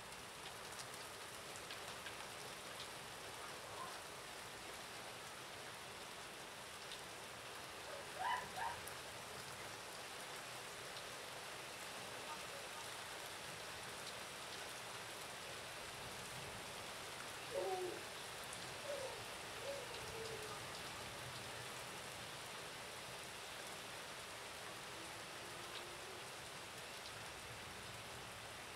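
Steady rain falling, an even hiss. A few short pitched calls rise above it, one pair about eight seconds in and three more a little past the middle.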